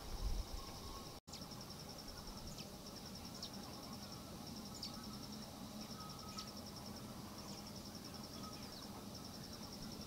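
Steady high insect trill, a fast even pulsing, with a few faint short falling chirps scattered through it. The sound cuts out for an instant about a second in, and there are a couple of low bumps at the very start.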